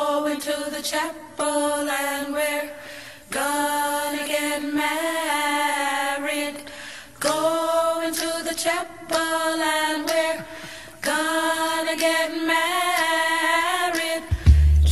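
Background music: a singing voice in long, slow phrases with little accompaniment. A deep bass beat comes in near the end.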